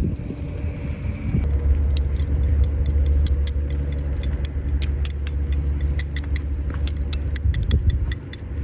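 A metal spoon clicking and scraping against the inside of a glass jar as relish is scooped out and spooned onto sliced beef: a quick, irregular run of small clinks. A steady low rumble runs underneath.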